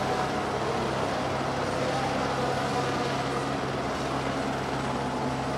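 Steady engine drone with a constant low hum over a wash of noise.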